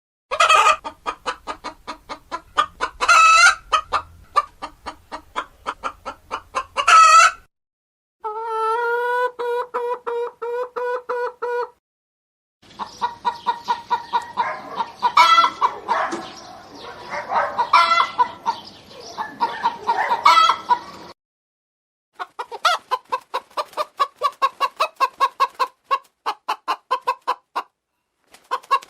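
Hens clucking in quick runs of short calls, broken every few seconds by louder squawks. These are several separate recordings cut together with brief silent gaps, and one stretch is a run of even, steady-pitched calls.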